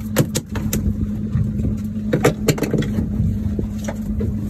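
Boat engine running with a steady hum, with a series of sharp clicks and knocks over it, bunched in the first second and again around two seconds in.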